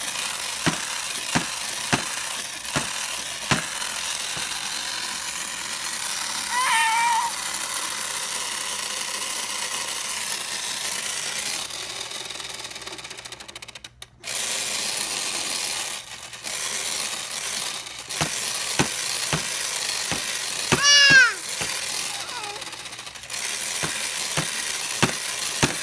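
Toy miter saw's electronic power-saw sound effect, a steady buzz that cuts out briefly about halfway through and then starts again. Plastic clicks and knocks come from the toy being worked, and a baby gives two short high squeals.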